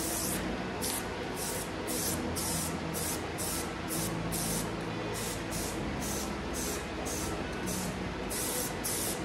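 Aerosol spray-paint can spraying in short hissing bursts, about two a second.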